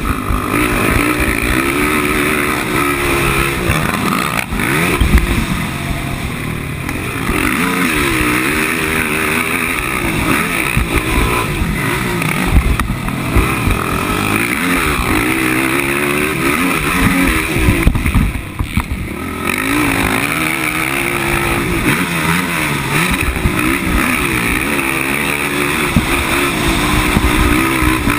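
450-class racing quad's single-cylinder four-stroke engine, repeatedly revving up and backing off as the rider works the throttle through turns and straights. About two-thirds through, the engine briefly goes off throttle before pulling hard again. Wind rushes over the helmet-mounted microphone.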